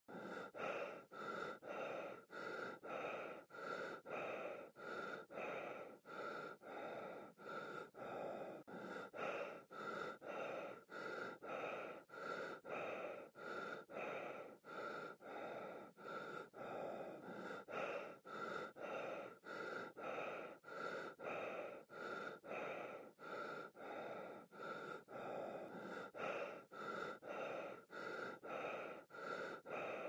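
Fast breathing in and out through a gas mask, a breath sound about every half second in a steady, even rhythm.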